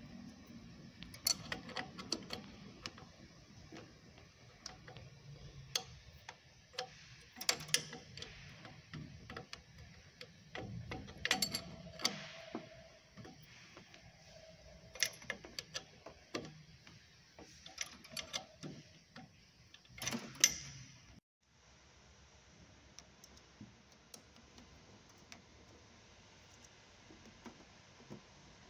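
Metal open-end wrench clicking and clinking against the nuts at the base of a Solex 30 PIC carburettor as it is turned by hand, in scattered irregular taps. About two-thirds of the way through the sound cuts off suddenly to faint room tone.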